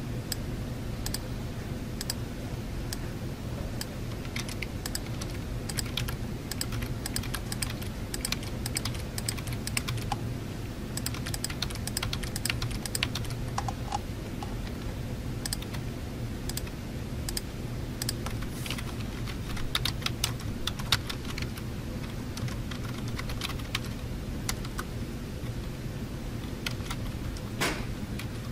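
Typing on a computer keyboard in irregular runs of clicks, over a steady low room hum, with a louder knock near the end.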